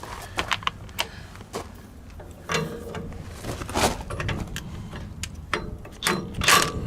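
Wrench working the castle nut on the brushcutter blade's bolt: irregular metal clicks and knocks, with a few louder clanks, as the nut is brought to a snug tightness that still lets the blade swing.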